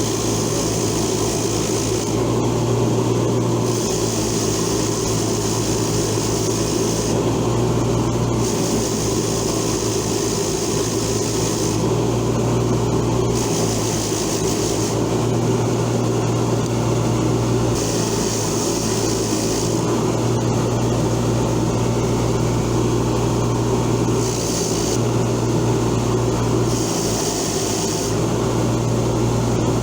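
Motor-driven wire wheel running steadily with a constant hum, and a scratchy hiss each time the rusty pliers are pressed against the spinning wire bristles, coming in spells of one to three seconds with short pauses between.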